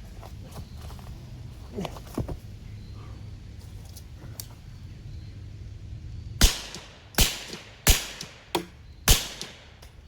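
Rapid gunshots from a suppressed Flux Raider pistol-caliber carbine: about six sharp cracks a little under a second apart, starting about six seconds in, each with a short ringing tail. Before them there are only a faint low hum and a few light knocks.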